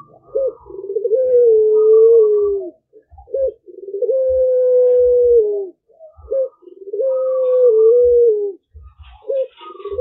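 Young puter pelung (Barbary dove) cooing. Each coo is a short note followed by a long held note that drops in pitch at the end, repeated about every three seconds. The bird is still learning its coo.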